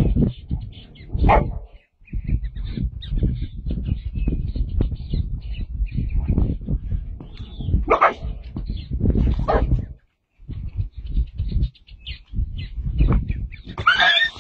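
A dog growling over its food bowl, breaking into sharp barks and snaps a few times, with a louder, higher call near the end.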